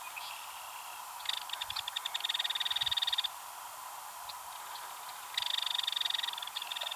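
Female belted kingfisher giving its dry, rapid rattle call twice: a rattle of about two seconds beginning a little over a second in, and a second rattle starting near the end.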